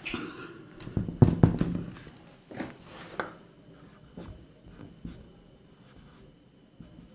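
Marker pen writing on a whiteboard: a run of short scratchy strokes and taps, loudest in the first three seconds and lighter after that.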